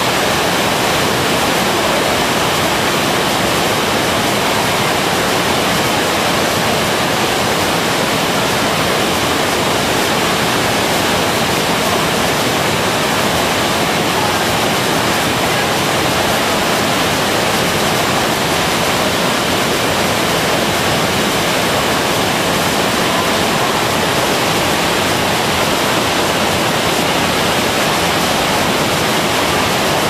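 Waterfall pouring, a loud, steady rush of falling water with no change throughout.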